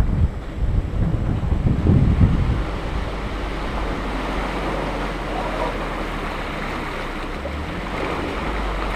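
A 4x4 driving slowly through a muddy water hole: water sloshing and washing around the tyres under a low rumble of engine and wind buffeting on the microphone. The rumble and buffeting are heavy for the first couple of seconds, then the sound settles into a steady wash.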